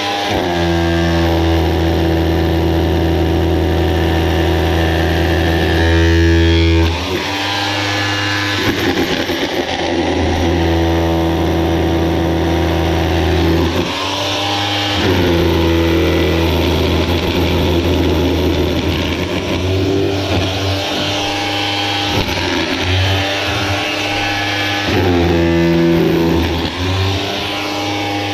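Corded Makita SDS rotary hammer with a chisel bit, running and hammering into concrete block to break it out. It runs in stretches of several seconds with brief pauses as the tool is repositioned, and rattles as the block breaks up.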